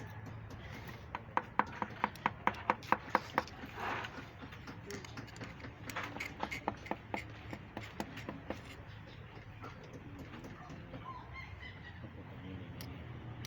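A run of sharp clicks or taps, about four a second, followed by scattered knocks that die away about two-thirds of the way through, over a low steady hum.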